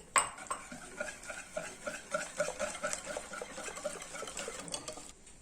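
Semolina cake batter being stirred in a bowl after more semolina is added, a sharp clink at the start and then steady strokes about four or five a second. The batter is still thin.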